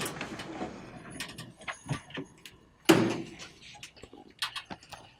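A sharp knock at the start and a louder one about three seconds in, each trailing off briefly, with scattered small clicks and taps between them.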